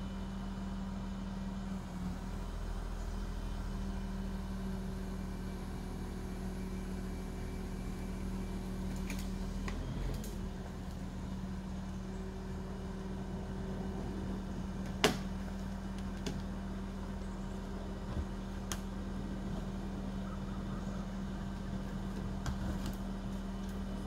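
Crane's engine running steadily, a low even hum with a steady drone. A single sharp knock sounds a little past the middle, with a few fainter clicks later.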